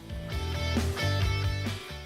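Background music: held chords over a sustained bass line.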